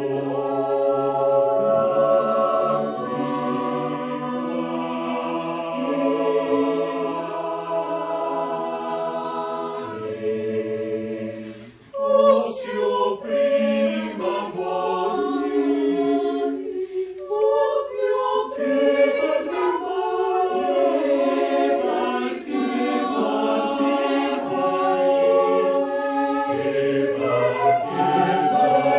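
Mixed choir singing a cappella in harmony: long held chords, a brief drop about eleven seconds in, then a choppier, more rhythmic passage with sharp attacks, before the sustained chords return near the end.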